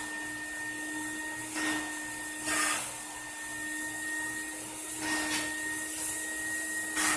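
RoboClean vacuum cleaner's motor running with a steady whine, with about four short bursts of hiss from its shampoo attachment.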